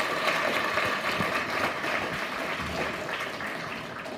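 Audience applauding, the clapping thinning and fading out near the end.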